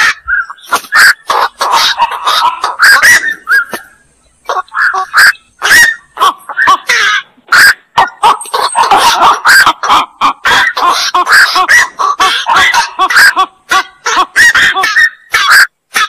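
Black-crowned night herons calling: many short, coarse 'kwok' calls in quick succession and often overlapping, thickest in the middle, with a brief lull about four seconds in.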